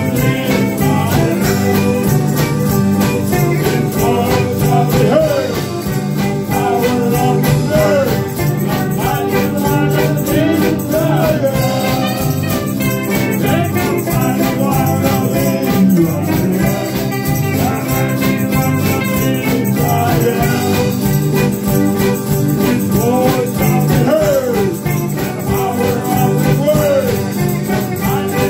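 Live worship music: a hand-held tambourine shaken in a steady rhythm over voices singing into microphones and band accompaniment.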